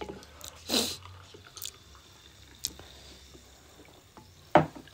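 Sounds of a meal at the table: a short noisy rustle about a second in, a few light clicks, and a loud thud near the end, as Pepsi is poured from a plastic bottle into a glass and a glass is handled.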